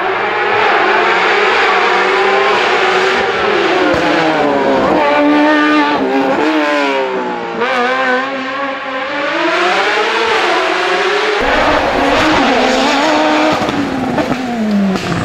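Open-cockpit hillclimb sports prototype's racing engine at high revs, its pitch climbing hard under acceleration and dropping back on downshifts into the bends, several times over. The sound changes abruptly about eleven seconds in as another stretch of the run begins.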